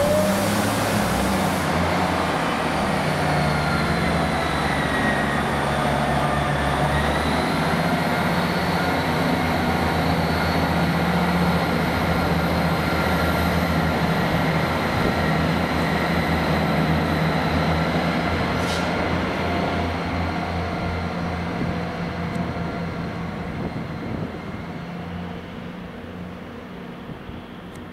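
Class 158 diesel multiple unit pulling away under power, its engines running with a whine that rises in pitch about seven seconds in. The sound fades steadily over the last several seconds as the unit moves off.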